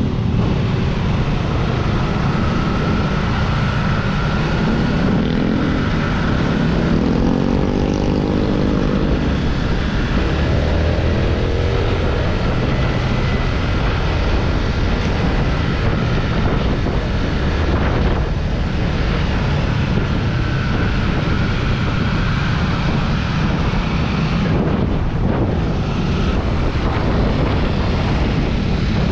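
Wind rushing over the microphone while riding a Yamaha Sniper 150 motorcycle, its single-cylinder engine climbing in pitch a few times as it accelerates, about five to ten seconds in.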